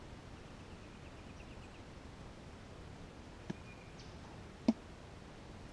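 Quiet outdoor background with a faint rapid chirping for about a second and a half near the start, then two short sharp clicks about a second apart, the second louder.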